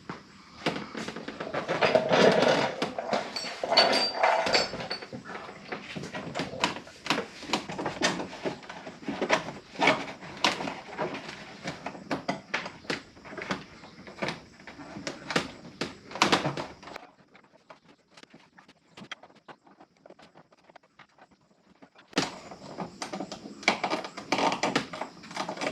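Dense, irregular clicks, knocks and rattles of parts and tools being handled on a truck door, stopping for a few seconds about two-thirds of the way through and then starting again.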